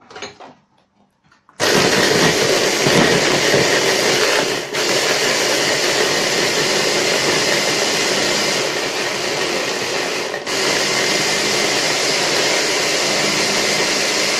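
Electric blender switched on about a second and a half in, running steadily as it grinds pieces of baked sponge cake into crumbs for cake pops, with two brief dips in its sound.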